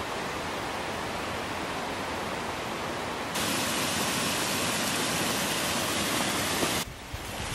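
Steady rush of running water from a stream. About three seconds in it jumps abruptly to a louder, hissier rush of a small waterfall pouring over a stone ledge, which cuts off near the end.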